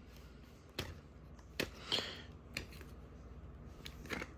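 A VHS tape case being handled and opened: several light plastic clicks and knocks, with a brief rustle about two seconds in.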